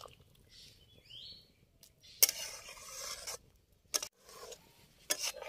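Long metal ladle stirring a thick chicken curry in a metal kadai, scraping the pan with a few sharp clinks against its side: about two seconds in, again at about four seconds, and near the end.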